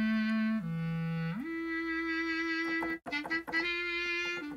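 Audio Modeling SWAM clarinet, a physically modeled software clarinet, playing a legato melody of held notes, with a smooth upward slide about a second and a half in, then a brief break and a quick run of short notes about three seconds in.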